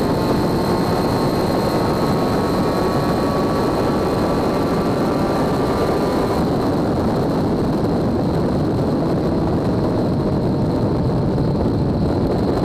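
Wind rush buffeting the microphone on a Honda CBX1000 at motorway speed, with the bike's inline-six engine running steadily beneath it. The higher hiss eases a little about six seconds in.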